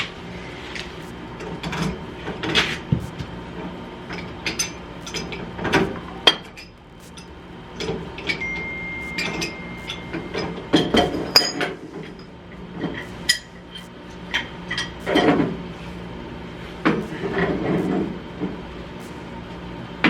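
Metal tools and steel pipe fittings knocking and clinking at irregular intervals while steam boiler piping is assembled. A thin steady tone sounds for about two seconds near the middle.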